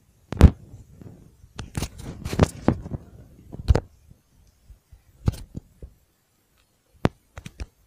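A series of short, sharp knocks and thumps at irregular intervals, the loudest about half a second in and a quick cluster near the end.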